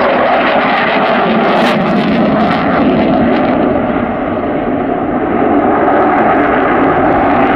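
Jet noise from a Eurofighter EF-2000 Typhoon's two Eurojet EJ200 turbofans during a display manoeuvre: a loud, steady rush that eases slightly about four seconds in, then swells again.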